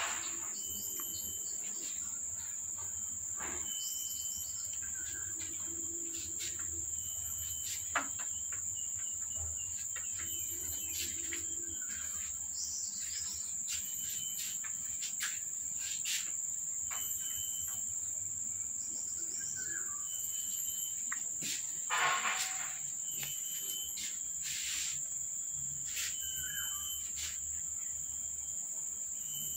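Steady high-pitched insect chirring, with scattered faint clicks and a brief louder rustle about 22 seconds in.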